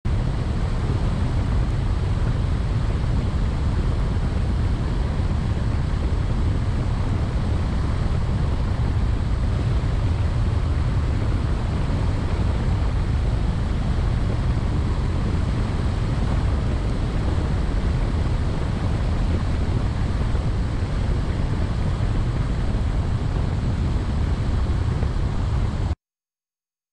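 Steady low rumble of a car driving along a paved road, tyre and wind noise with no change in speed, cutting off suddenly near the end.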